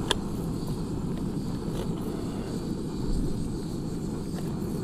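Steady low rumble of wind buffeting the tent and microphone, with one short click about a tenth of a second in.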